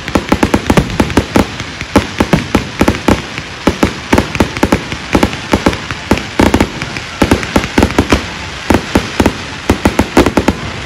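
Fireworks going off: a rapid, uneven string of sharp bangs and crackles, several a second, as shells rise and burst overhead.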